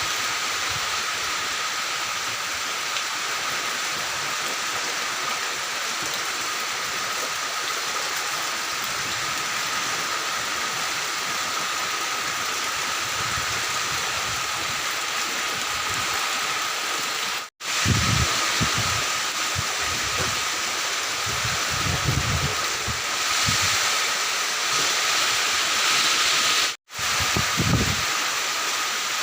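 Heavy rain falling in a steady hiss, with strong wind gusting against the microphone in the second half. The sound drops out briefly twice.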